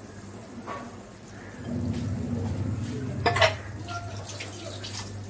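Spice paste frying in ghee and oil in an aluminium kadai, bubbling and crackling with small spits, over a steady low hum. A sharp clink about three and a half seconds in is the loudest sound.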